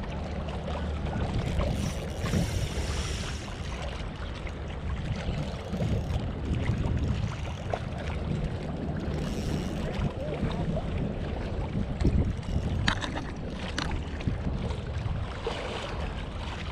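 Wind buffeting the microphone, a steady low rumble, with the sea washing in the background and a couple of faint clicks about thirteen seconds in.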